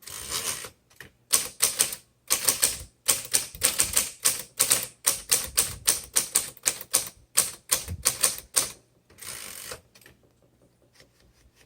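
1968 Smith-Corona Super Sterling manual typewriter being typed on: a quick run of sharp key and typebar strikes, several a second, for about nine seconds. A brief longer rasp follows near the end, and then the typing stops.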